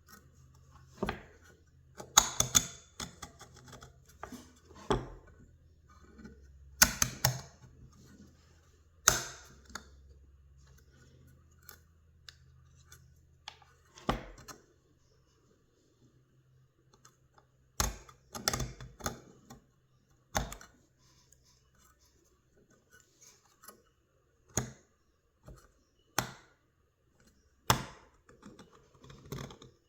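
Scalpel blade scraping old foam-surround adhesive off the rim of a McIntosh 6-inch car speaker: irregular short, sharp scrapes and clicks, some in quick clusters, with quiet gaps between, over a faint low hum.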